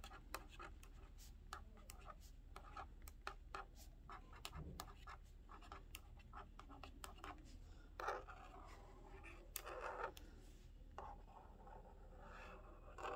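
A marker writing on paper, faint, in many quick short strokes with a few longer strokes in the second half.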